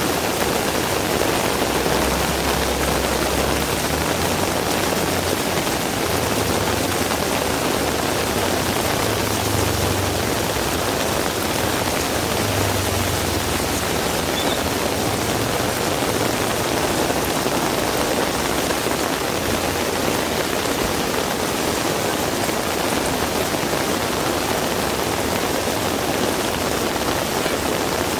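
Heavy rain falling steadily, an even hiss of rain striking surfaces. A faint low rumble comes and goes during the first half.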